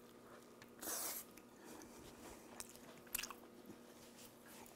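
A person biting into bread dipped in stew sauce and chewing it, picked up close by a clip-on microphone. There is one short bite about a second in, then faint chewing with a few small clicks.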